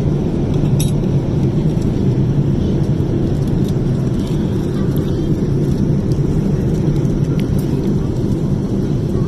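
Steady low rumble of a jet airliner's cabin noise in flight, with a few faint clicks over it.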